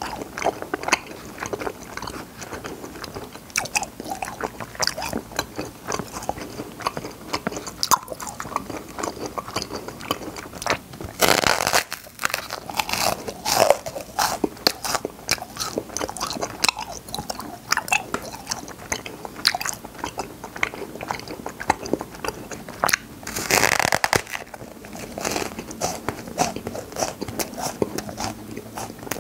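Close-up mouth sounds of chewing popping-candy cotton candy: a dense, irregular crackle of tiny pops and clicks. Twice, a third of the way in and again near the end, a louder rushing hiss rises over it for about a second.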